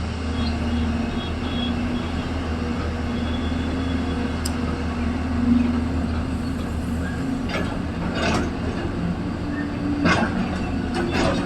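Excavator's diesel engine running steadily, with several sharp metallic clanks in the second half.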